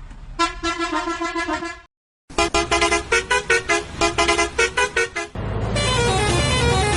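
Musical bus horn tune played as a series of edited sound variations: a phrase that breaks off just before 2 seconds in, a short gap, a run of quick staccato horn notes, then a denser, bass-heavy version with a falling melody line.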